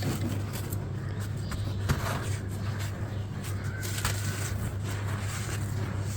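Crunchy crumbly material breaking and crumbling, with many irregular small crackles and crunches, over a steady low hum.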